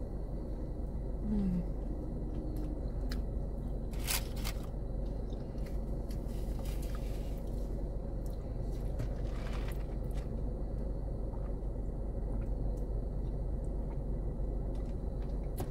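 A person chewing a mouthful of fish sandwich, mostly bread, pickle and sauce, over a steady low hum, with a sharp click about four seconds in.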